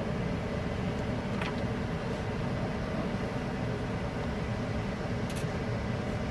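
Steady low machine rumble, with two faint light clicks, one about a second and a half in and one near the end.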